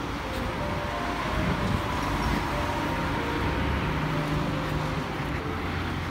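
Steady city street noise with traffic, and a faint melody of background music running underneath.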